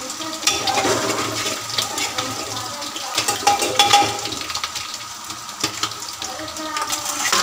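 Hot oil sizzling and crackling in a kadhai and a pressure cooker, with a metal spoon scraping and clinking as a ginger-garlic-chilli tadka is stirred.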